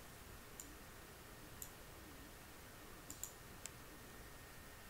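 Computer mouse clicking a few times, faint and spread out, with two quick clicks about three seconds in, over quiet room tone.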